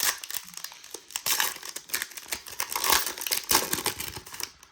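Crinkling and crackling of a foil trading-card pack wrapper being handled and torn open, in several louder bursts.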